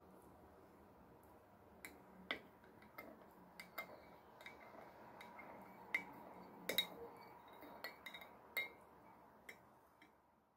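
A metal tea infuser clinking lightly against a double-walled glass cup as it is dipped in the tea, a dozen or so scattered clinks over a faint steady hiss.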